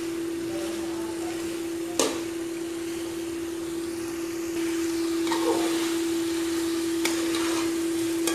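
A steady hum on one constant pitch runs throughout over a faint hiss. A metal slotted spoon stirring chicken kofta and potato curry in an aluminium pot knocks sharply once about two seconds in, and soft scraping and sizzling get a little louder in the second half.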